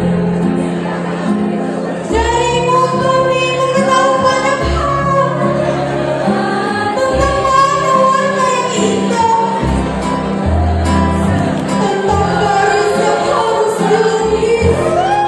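Girls' choir singing, with a solo female voice through a microphone coming in strongly about two seconds in, over an instrumental accompaniment of low held notes.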